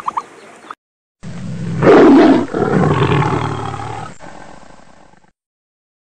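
Lion roaring: one long roar that starts about a second in, swells quickly to its loudest, then fades away over about three seconds.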